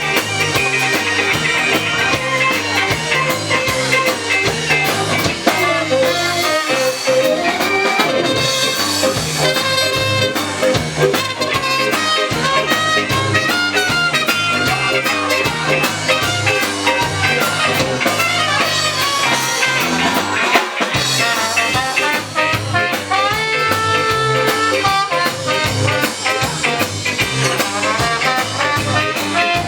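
Live band music in a ska style, with brass and guitar over a steady bass and drum beat.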